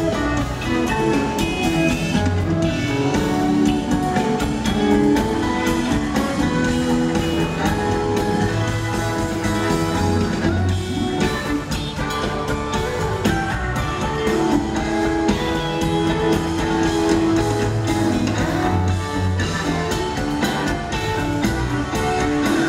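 Live rock band playing: electric guitars over bass and drum kit, heard from the audience.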